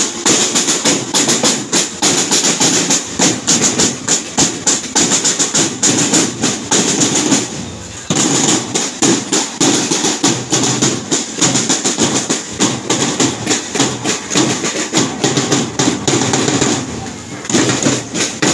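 Several snare drums of a marching drum line played together in a fast, steady beat of rapid stick strokes, breaking off briefly about seven and a half seconds in and again near the end.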